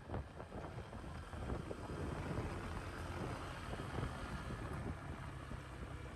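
Wind buffeting the microphone over the low rumble of a motorcycle riding a rough, bumpy dirt road, with scattered short knocks and rattles.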